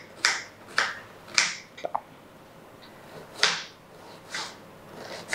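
Kitchen knife chopping an onion into small pieces on a cutting board: sharp single strikes, a few quick ones, then a pause and a couple more spaced out.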